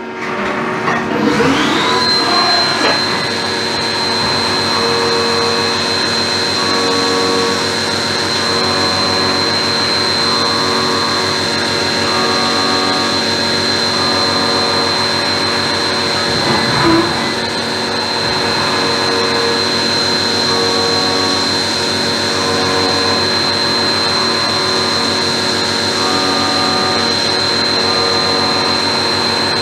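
CNC milling machine's spindle rising to a steady high whine over the first two seconds, then an 8mm carbide end mill cutting aluminium air-rifle cylinder ends. Fainter tones pulse on and off about once a second under the whine.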